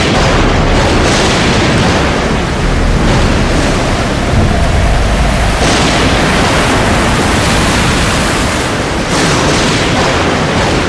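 Storm at sea: heavy breaking waves and wind over a deep, continuous rumble, swelling into louder crashes several times.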